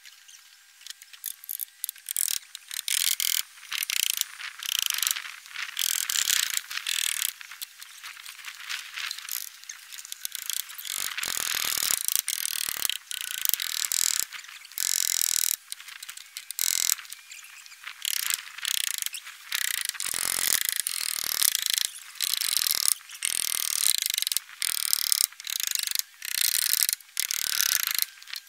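Scraping, rattling and clicking from hands and tools working on snow-covered metal roofing sheets. It comes in irregular bursts of a second or two, with short breaks between them.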